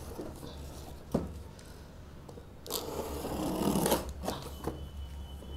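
Utility-knife blade slitting the packing tape along a cardboard shipping box: a sharp tick about a second in, then one scratchy cut of a little over a second near the middle, followed by a few light knocks as the box is handled.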